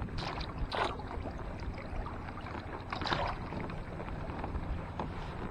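Water and low wind rumble around a kayak, with a few short splashes or knocks about a second in and again around three seconds.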